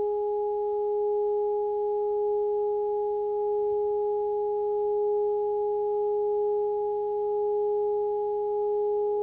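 Steady electronic drone: one pure held tone with fainter overtones an octave and more above, swelling and easing gently in loudness, played from a live electronics setup of effects pedals and a tablet.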